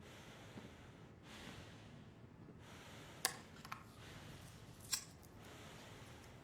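Faint room tone with three short, sharp clicks a little past the middle, the first the loudest.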